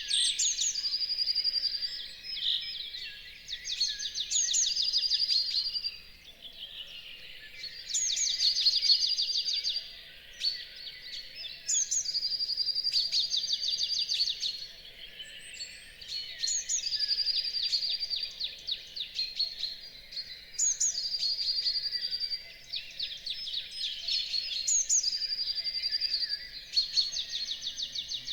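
Dawn chorus of songbirds singing: song phrases of fast trills and whistled notes, repeating every few seconds over a soft background.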